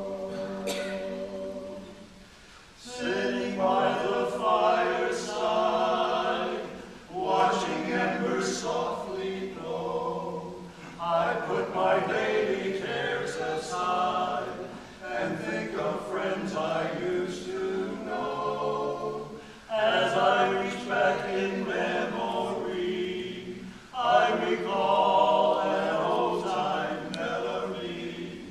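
Men's barbershop chorus singing a cappella, in phrases broken by short pauses about every four to five seconds.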